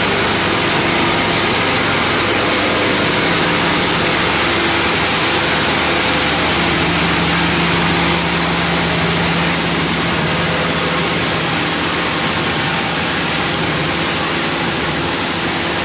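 An engine running steadily: a constant low hum under a loud, even rush of noise that does not change.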